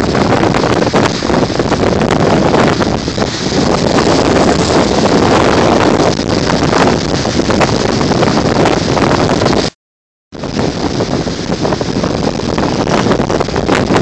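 Strong wind blasting across a phone's microphone, loud and unbroken, over waves breaking and splashing against a rocky shore. The sound cuts out completely for about half a second a little after two-thirds of the way through, then comes back.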